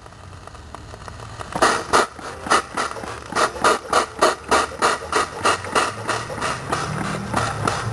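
A rhythmic run of short scraping or knocking strokes on metal, about three a second, starting about a second and a half in and lasting around six seconds. A low hum builds under them near the end.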